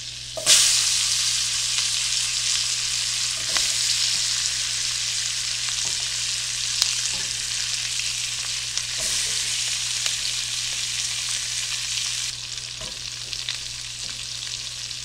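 Bell pepper strips dropped into a skillet of hot oil and melted butter, setting off a sudden loud sizzle about half a second in. The steady sizzling goes on as more strips go in, with a few sharp ticks, and eases somewhat near the end.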